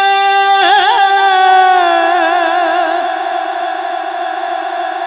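A naat reciter's voice holding one long, high sung note on the end of a line. Vibrato sets in about half a second in, the pitch sags slightly about two seconds in, and the note then eases off in loudness toward the end.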